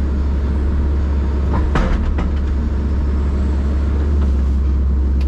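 Hitachi excavator's diesel engine running steadily, heard from inside the cab while the boom and bucket dig, with a couple of sharp knocks about two seconds in.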